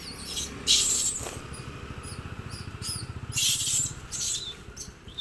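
A monkey's short, high-pitched squeals, several in a row with a few pitch glides, over a steady low rumble with a fast pulse.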